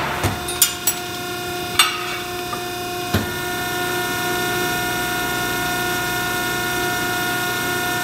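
Scotchman 50514-EC hydraulic ironworker running with a steady hum from its pump motor. A punched piece of steel angle iron knocks against the punch and die area about five times in the first few seconds as it is handled and pulled out.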